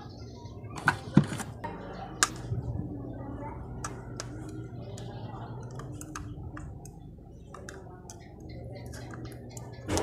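Scattered light plastic clicks and taps as a gaming mouse is handled and worked at with a small tool to open it, over a low steady hum that sets in a couple of seconds in.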